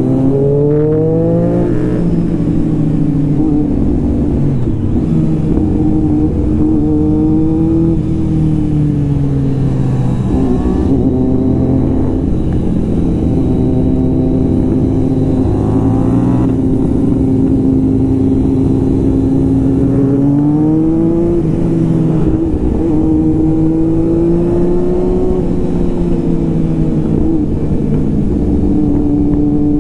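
Superbike engine running under way, its pitch rising as it accelerates about a second in and again around the middle, then settling to a steady cruise.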